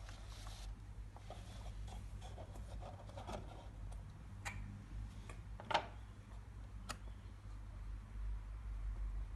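Paper and card being handled, with light rubbing and scattered clicks and a sharper click about halfway through, over a steady low hum.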